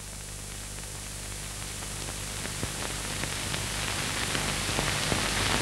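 Background noise of an old film soundtrack: a steady hiss with a low hum underneath and scattered crackles, slowly growing louder.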